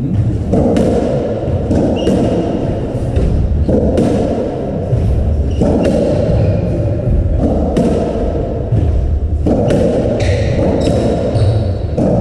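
Racketball rally in a squash court: the hollow racketball thuds off rackets and walls about once a second, each hit echoing in the court. Short high squeaks come in between the hits.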